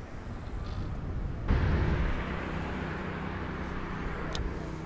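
Steady traffic noise from the highway bridge, a low hum that starts suddenly about a second and a half in, with a single sharp click near the end.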